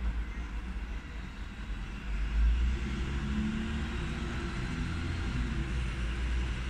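Steady low outdoor rumble with a hiss above it, growing louder about two seconds in, and a faint wavering hum through the middle.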